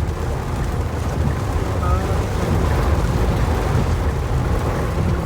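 Steady low rumble of a moving vehicle, with road and wind noise.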